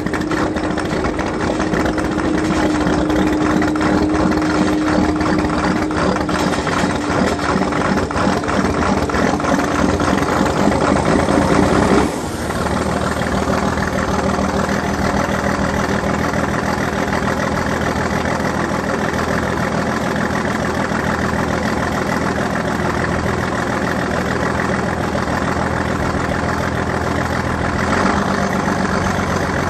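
John Deere 4630's six-cylinder turbo diesel starting cold without its block heater: it cranks and fires unevenly over a steady whine for about twelve seconds. The whine cuts out abruptly, and the engine settles into a steady idle.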